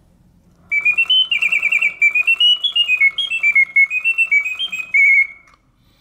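Vintage 1967 Reuge singing bird cage whistling its mechanical birdsong: fast warbling trills and whistled notes stepping up and down in pitch. The song starts about a second in and breaks off shortly before the end, as the movement goes into its pause mode.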